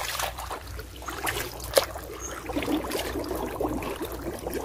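Shallow water sloshing and splashing with scattered small drips and clicks, as hands grope through water and mud at the bank.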